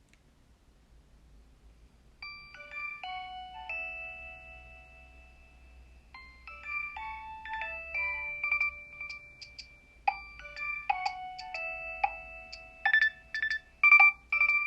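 Nokia 3100 mobile phone playing one of its built-in polyphonic ringtones through its small speaker. A melody with several notes sounding together starts about two seconds in and grows busier and louder, with sharp struck notes toward the end.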